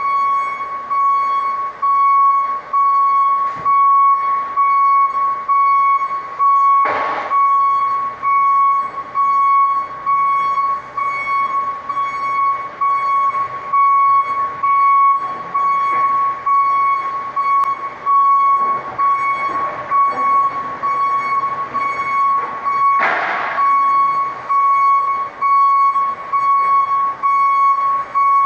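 A forklift's reversing alarm beeping in a single high tone as the forklift backs out of the trailer. A short, louder rushing noise cuts across it twice.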